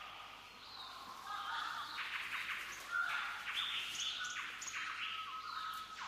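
Birdsong: several birds chirping and calling in quick, overlapping short notes, with a few brief high whistles.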